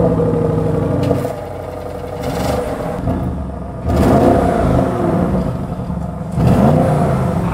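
Audi RS7 Performance's 4.0-litre twin-turbo V8 idling high just after start-up with the exhaust flaps open, settling about a second in, then revved several times: a sharp blip near the middle and another near the end, each falling back to idle.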